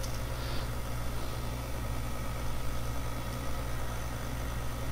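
Steady low electrical hum with faint hiss: the background noise of a screen-recording microphone.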